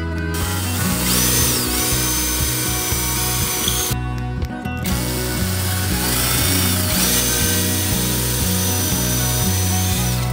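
Cordless drill boring into wood, its motor whine rising as it starts and then running steadily, in two spells of about three seconds each with a short break between. Background music plays throughout.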